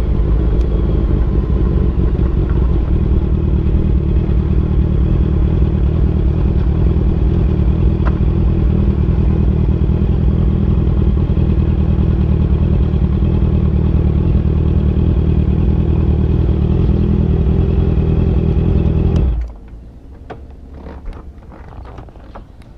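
Honda CBR650F's inline-four engine running steadily and loudly. It cuts off suddenly about nineteen seconds in, leaving a much quieter background with a few light clicks.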